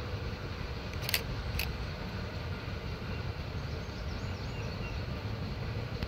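Shay geared steam locomotive working upgrade out of sight, heard as a steady low rumble, with two sharp clicks about half a second apart about a second in.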